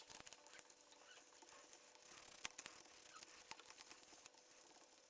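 Faint irregular clicking and light rubbing of a non-mechanical portable Bluetooth keyboard's keys being pressed down and wiped with a damp cloth, with a sharper click about halfway through.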